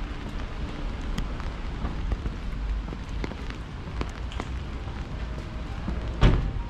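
Rainy street ambience: a steady low rumble with scattered light taps of raindrops. A single loud thump comes near the end.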